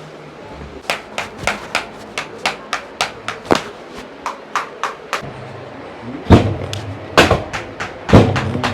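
Quick sharp taps, about four a second, then a low steady hum with three heavy thumps about a second apart: percussive strikes during a chiropractic treatment.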